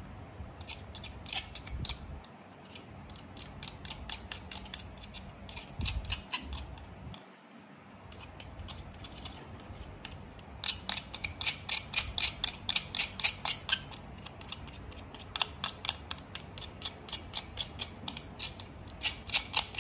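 Light, quick clicking, about four clicks a second, as a thin tool is worked against the plastic front cover assembly of a five-thread overlock sewing machine. There is a brief run of clicks about a second in, then steady clicking through the second half.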